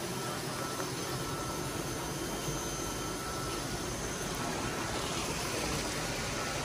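Steady rushing and bubbling of aerated water in tilapia farm tanks, with a faint steady whine running underneath.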